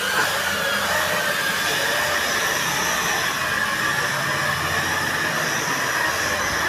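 WLtoys V333 quadcopter's four motors and propellers running as it hovers and skims just above the floor, a steady high whine over a rushing hiss.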